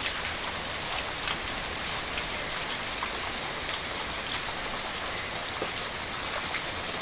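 Heavy rain falling steadily, a constant hiss with scattered sharper drop hits.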